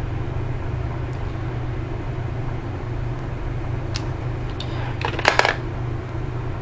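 A steady low hum. About four seconds in come a few faint clicks, then a short clatter of handling noise, the loudest sound here, about five seconds in.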